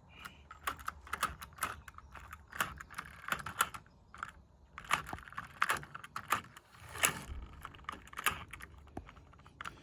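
Irregular light clicks and taps of small hard parts being handled, several a second and unevenly spaced.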